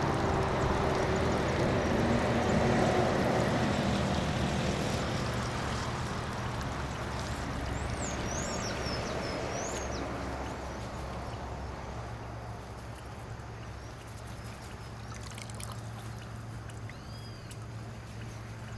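Water pouring and trickling off a mesh scoop of fish into a water-filled cooler, loudest at first and tapering away over the seconds.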